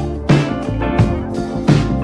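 Background music with a steady beat, about one strike every 0.7 seconds.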